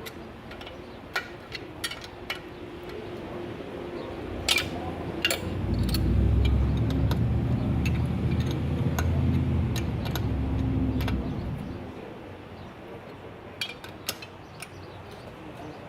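Scattered light metallic clicks and clinks of hand tools and bolts against the sterndrive housing. A low rumble swells up for about five seconds in the middle and fades away.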